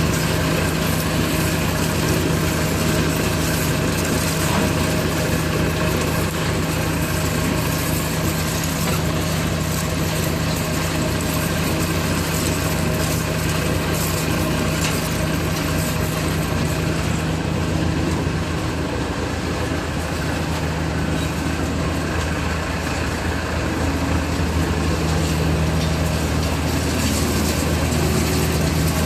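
Coconut shell charcoal carbonization machine running, a steady mechanical hum with a constant low drone and an even rushing noise over it.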